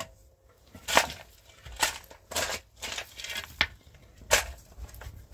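About six sharp knocks at uneven intervals, the first about a second in and the loudest.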